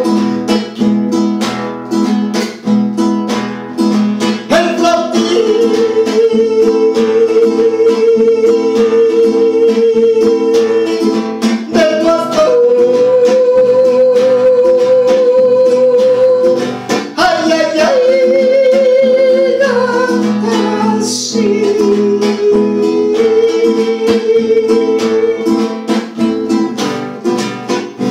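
Acoustic guitar strummed steadily under a man's voice singing long, wavering held notes with no clear words, in about four long phrases.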